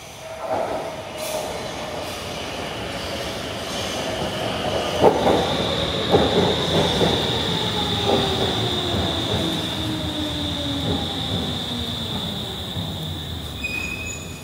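Stockholm metro train arriving at an underground platform. The rush of the approaching train rises about half a second in. A high steady squeal begins about five seconds in, an electric whine falls in pitch as the train slows, and several sharp clacks come from the wheels over rail joints.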